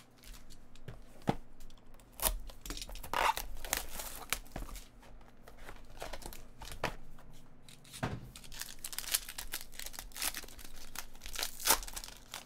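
Hands opening a trading-card box and pulling its foil card pack open: a run of uneven rustles and crinkles, ending in the foil wrapper tearing.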